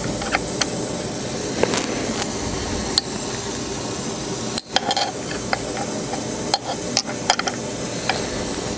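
Copper intake tube clicking and clinking against the metal cylinder heads of a model radial engine as it is test-fitted, with a dozen or so sharp taps over a steady hiss.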